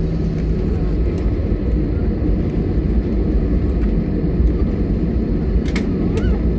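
Airliner noise during a landing: a steady, loud low rumble of engines and airflow that keeps on without letting up.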